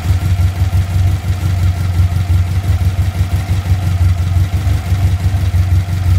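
Air-cooled 2054cc VW flat-four engine with dual Weber IDF 44 carburettors running steadily at idle.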